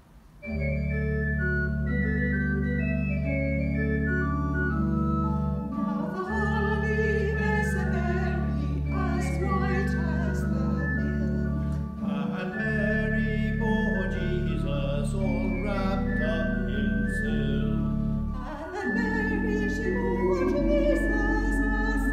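Church pipe organ playing long held chords, joined about six seconds in by a small choir singing with vibrato: the communion anthem.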